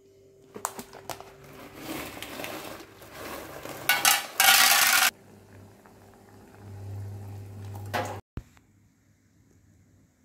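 Kitchen handling sounds, with clicks, clatter and plastic rustling, and a loud burst of rushing noise lasting about half a second a little after four seconds in. Then a steel pot boils on the stove with a low rumble, and the sound cuts off abruptly a little after eight seconds.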